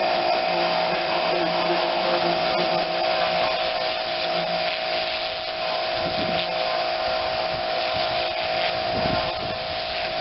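Small pressure washer running steadily, its motor and pump giving a constant whine over the hiss of the water spray, with some uneven swishing as the jet works across the surfaces.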